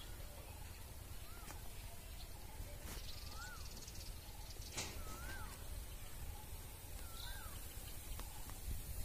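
A bird repeating a short whistled call that rises and falls, about every two seconds, over a steady low rumble.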